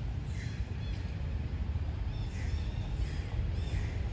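Short, high, falling animal calls repeating every second or so over a steady low rumble.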